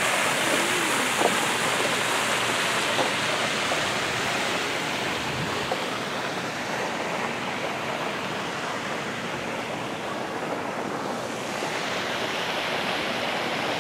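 Pond fountain splashing steadily, a constant rush of falling water that eases a little midway and swells again near the end.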